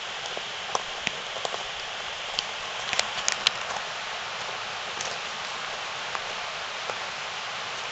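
Footsteps crunching on a gravel trail, a few irregular crunches and clicks with a cluster about three seconds in, over a steady rushing hiss.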